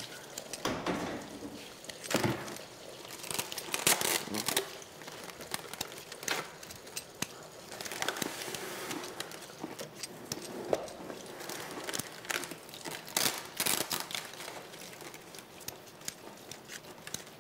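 Food-prep noises as potatoes are cut and handled on cutting boards: irregular rustling, scraping and light knocks.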